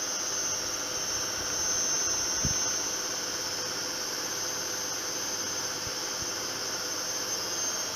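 Zanussi ZWF 1432 front-loading washing machine running, its motor and drum giving a steady whirr with a high-pitched whine.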